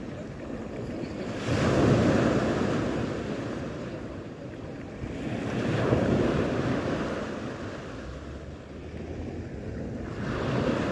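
Sea waves breaking and washing on the shore, swelling three times about four seconds apart, with some wind on the microphone.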